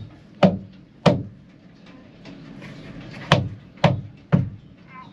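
Five sharp knocks: two in the first second or so, then three in quick succession about three to four seconds in. They come while a thru-hull fitting is being worked through its hole in the boat's hull.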